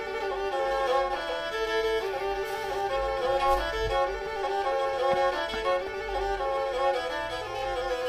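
Background music: a Black Sea kemençe, a small bowed fiddle, playing a melody of stepping notes.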